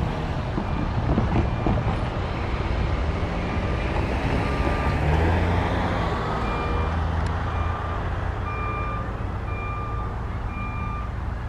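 Railroad grade-crossing warning bell ringing, one short ding about every second, over the low rumble of an approaching EMD diesel locomotive consist (an F9 leading a GP7).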